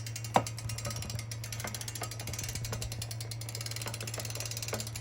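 Super73 ZX electric bike's drivetrain turning with a rapid ratcheting tick over a steady hum, broken by irregular sharper clicks, the loudest about half a second in. The owner takes the noise for bearings going out.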